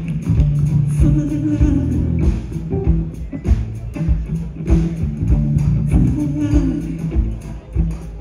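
Live rock band playing: electric guitar, electric bass and a drum kit keeping a steady beat, with singing over it.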